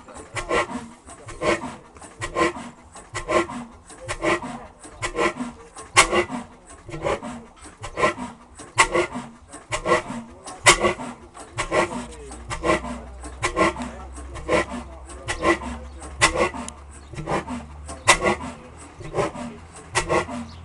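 1953 Ruston & Hornsby 9X-class HR stationary oil engine, 38 litres with a three-ton flywheel, running slowly on a kerosene and diesel mix with a steady beat of about two knocks a second. A low hum joins in about halfway through.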